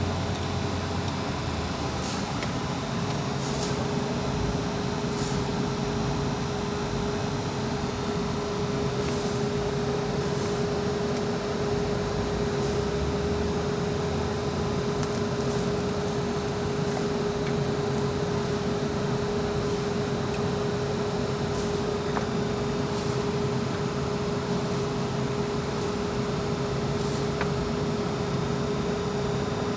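Steady machine hum, like a fan running, with one held tone throughout and a few faint light clicks now and then.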